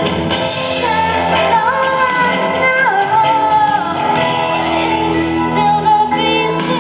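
Music with a singing voice over instrumental backing: held, wavering sung notes that glide from one pitch to the next.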